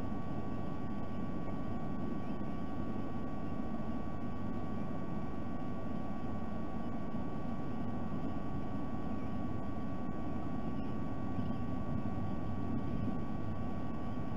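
Steady low background rumble with a constant thin electrical tone over it, unchanging throughout.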